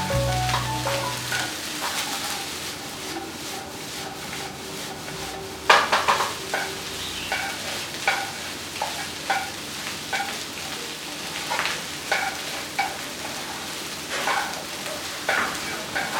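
Food sizzling in a hot frying pan while it is stirred with a spatula, with a scrape or knock against the pan about every second, the loudest about six seconds in.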